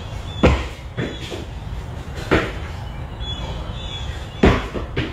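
Dull thuds of dumbbells set down and feet landing on an exercise mat during dumbbell snatch burpees, a thud every second or two, over a steady low hum.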